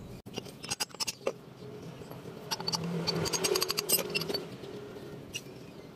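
Sharp metallic clicks and clinks as a brake caliper and a C-clamp are handled, a few about a second in and a denser run in the middle.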